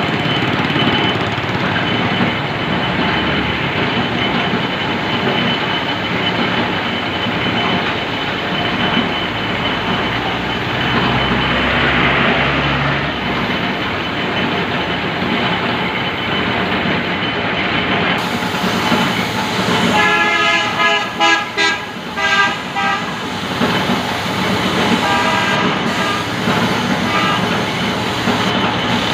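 Gravity-feed paint spray gun and its compressed-air supply hissing steadily while paint is sprayed onto a car door. About two-thirds of the way through, a horn sounds in a run of short toots, with a few more shortly after.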